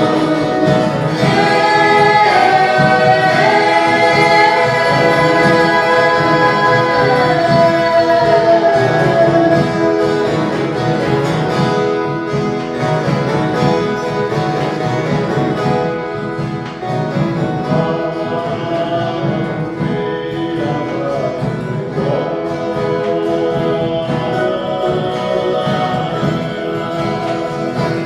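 Christmas music on viola caipira, ten-string Brazilian country guitars, with a choir singing long held notes; the voices slide down and end about nine seconds in, and the violas play on.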